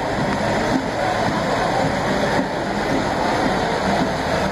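A semi truck's diesel engine running at low speed over a steady wash of background noise.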